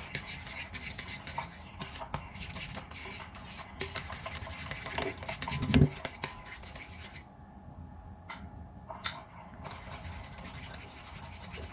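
Metal spoon scraping and clicking against a ceramic mixing bowl as egg is beaten into creamed butter and sugar, with a louder knock a little before the halfway point.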